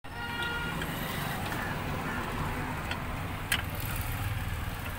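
Steady background traffic noise with a short horn toot near the start and a single sharp click about three and a half seconds in.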